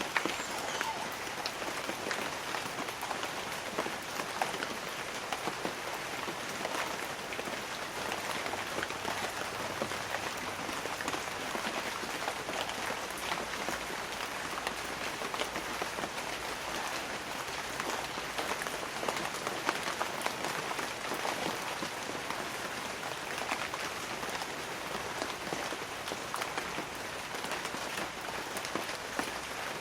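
Light rain falling steadily on banana leaves: an even hiss dotted with many close, sharp drop ticks.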